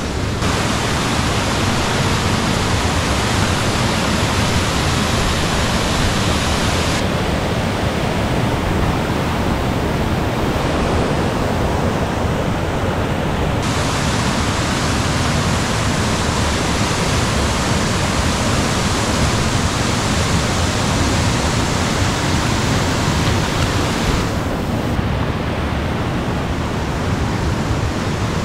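Steady, loud rush of a small waterfall on a mountain stream pouring into a natural pool. Its hiss turns duller abruptly twice, about a quarter of the way in and again near the end.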